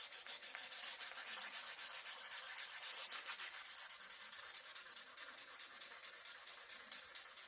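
Sandpaper rubbed by hand over a knife's black canvas handle scales in quick, even back-and-forth strokes, about seven a second, sanding the scales flush with the blade's back spine.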